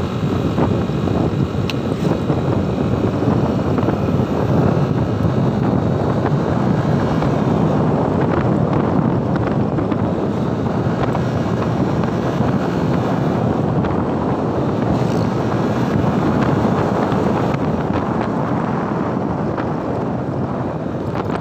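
Steady, loud rush of wind buffeting the microphone on a moving scooter, with riding noise underneath.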